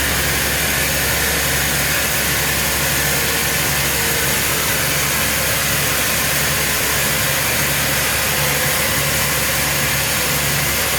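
Sawmill machinery running steadily: a continuous engine-like drone under a strong, even hiss.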